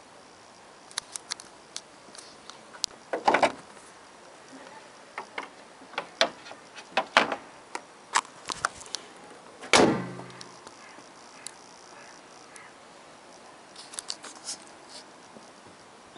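Scattered sharp clicks and knocks, loudest about three, seven and ten seconds in, the last one with a short low ring after it.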